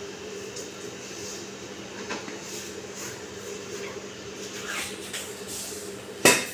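Kitchen background: a steady low hum with a few faint light taps, and one sharp knock near the end.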